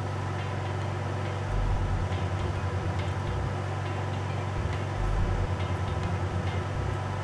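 Laminar flow bench blower running with a steady low hum. Faint small clicks from tweezers handling hard drive parts come over it now and then.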